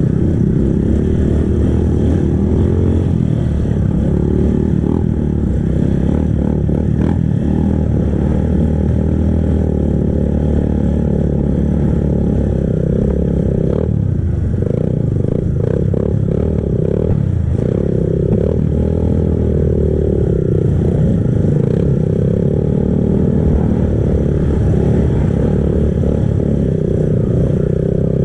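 Kawasaki KLX trail bike's single-cylinder four-stroke engine, on its stock exhaust, running steadily under load as it is ridden off-road, with the revs rising and falling about halfway through.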